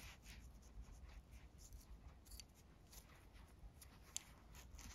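Faint handling sounds: nylon paracord being pushed through the slot of a plastic buckle, with scattered light rustles and small clicks, one sharper click a little after four seconds in. Otherwise near silence.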